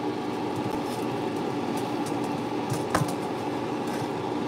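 A fan motor hums steadily, with one sharp clink of metal tongs against the air fryer basket about three seconds in.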